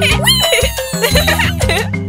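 Upbeat cartoon background music with a steady bass line, with a short swooping sound that rises and falls just after the start.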